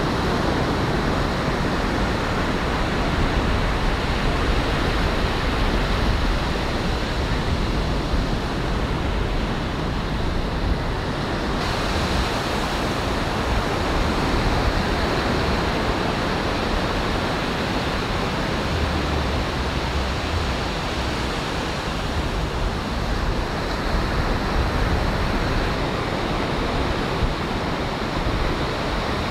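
Surf breaking and washing up on a sandy beach, a steady wash of waves with a low rumble of wind on the microphone; the sound shifts slightly about twelve seconds in.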